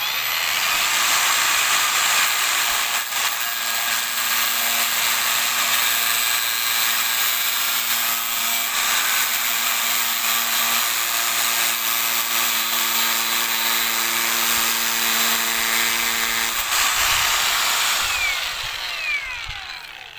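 Angle grinder fitted with a cutting disc made of two stacked sandpaper discs, running at full speed as it cuts through a PVC pipe, which it cuts smoothly. A few steady tones run through the middle and stop about 16 seconds in. Near the end the grinder is switched off and winds down.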